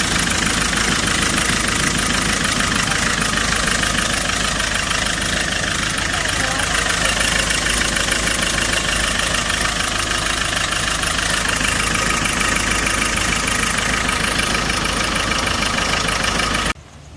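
Hyundai Porter 2 diesel engine idling with a knock, running rough. The knocking and vibration are laid to a leaking fuel injector washer letting out compression. The sound cuts off suddenly near the end.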